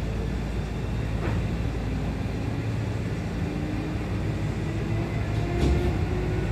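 Kintetsu local electric train running, heard from inside the passenger car: a steady low rumble with a thin motor whine that rises in pitch as the train picks up speed, and a few faint clicks.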